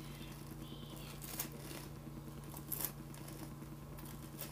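Hands handling small objects on a tabletop: a few short, crisp handling noises, the loudest about a second and a half in and again near three seconds, over a steady low hum.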